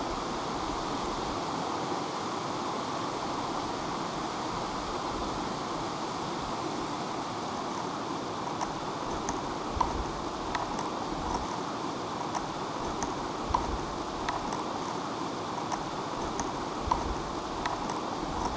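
A stream of water running with a steady rush. From about halfway through, irregular sharp clicks come a few times a second.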